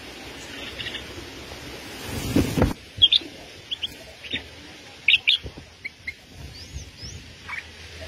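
A small songbird giving short, sharp chirps in quick clusters, with a couple of brief rising whistles among them. For the first two seconds or so a hissing noise covers everything, then stops abruptly.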